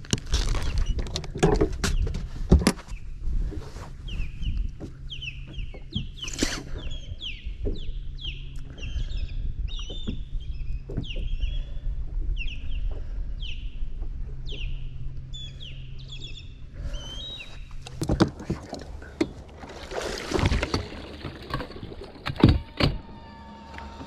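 Steady low hum of a bass boat's electric trolling motor, under a bird singing a long run of downward-slurred whistled notes, about two a second, from about four seconds in to about sixteen. Light clicks and handling noise in the first few seconds, and a few knocks near the end.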